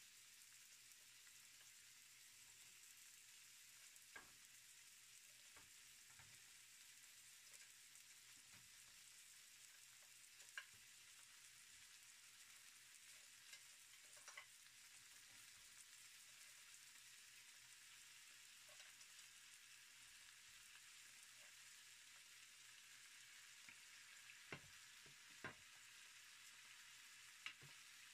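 Clams and crab pieces frying in a nonstick pan, a faint steady sizzle with a few short clicks and pops scattered through it.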